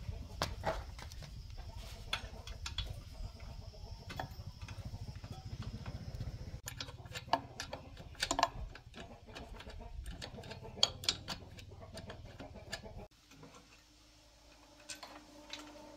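A combination spanner clinking and ticking against the rusty nuts and fittings of an old air compressor as they are worked loose, in a scattered run of sharp metal clicks. The sound cuts off abruptly twice.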